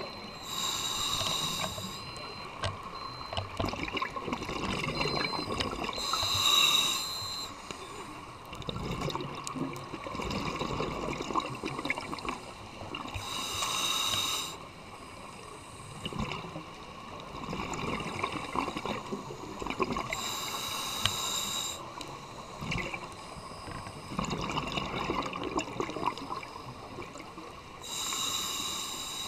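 Scuba breathing through a regulator, heard underwater: exhaled bubbles rush out in a loud burst about every seven seconds, five times, with quieter bubbling hiss in between.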